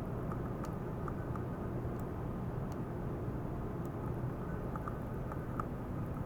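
Small water pump running steadily with water circulating: a constant low hum and rushing noise, with scattered faint ticks.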